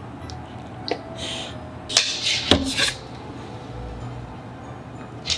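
A small food item set down on a hard kitchen countertop: a few light clicks, then a sharp knock about two and a half seconds in, with short bursts of handling noise around it.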